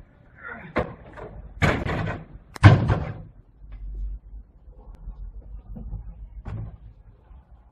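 A door being opened: a sharp latch click, a scraping rush, then a hard bang about two and a half seconds in, the loudest sound, as the door hits home. A few lighter knocks follow, one stronger near the end.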